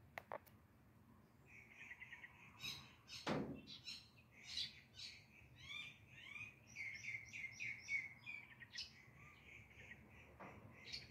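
Small birds chirping in quick runs of short, high notes, faint and densest through the middle. A brief rushing noise comes about three seconds in, and two clicks at the very start.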